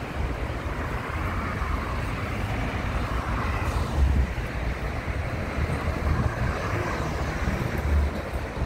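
Road traffic passing along a street, with wind rumbling on the microphone and a couple of louder low bumps.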